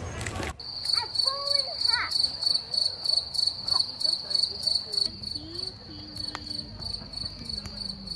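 Crickets chirping: a steady high trill that pulses about three times a second.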